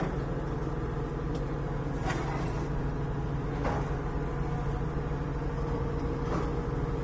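Hydraulic excavator's diesel engine running steadily, with a couple of faint clicks or knocks in the middle.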